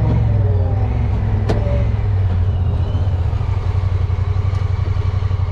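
A Honda Pioneer 1000-5 side-by-side's 999 cc parallel-twin engine running steadily under way, heard from the driver's seat. There is a single sharp click about one and a half seconds in.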